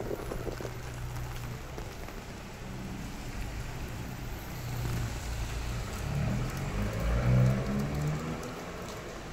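Steady rain on a city street while a car's engine approaches and passes, growing louder to a peak about seven seconds in and then fading.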